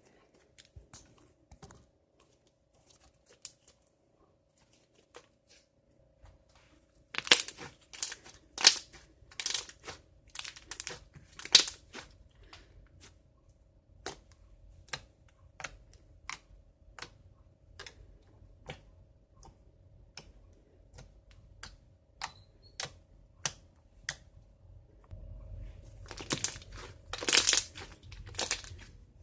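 Soft slime being worked by hand, giving off a stream of sharp little clicks and pops. The clicks are few at first, then come thick and fast for several seconds, and there is a louder cluster near the end.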